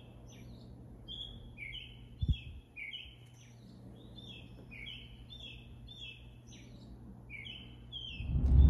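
A songbird singing a steady series of short, falling chirps, about two a second, over a low steady hum, with one brief thump about two seconds in.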